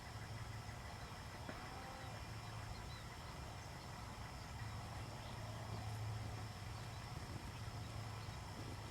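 Faint outdoor ambience: a steady low rumble with thin, steady high-pitched tones above it.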